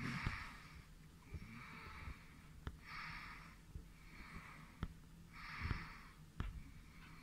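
A person breathing close to the microphone: soft in-and-out breaths about every second and a half. A few faint clicks from the eyepiece being handled.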